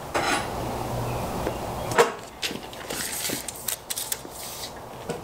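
A steel tape measure being handled and its blade pulled out over a wooden board. A sharp click comes about two seconds in, then a run of short clicks and scrapes.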